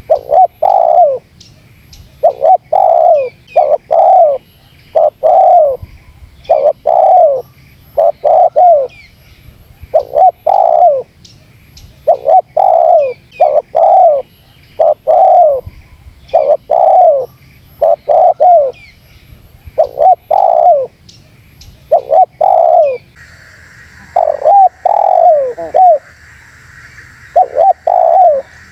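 Spotted dove (terkukur) cooing over and over in phrases of a few coos each, roughly one phrase every one to two seconds. A steady high hiss comes in for the last few seconds.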